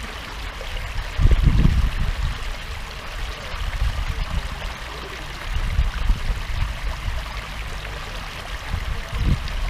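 Water churning and rushing steadily where it wells up from an inlet into a concrete pond. Low rumbles come through about a second in, again around six seconds, and near the end.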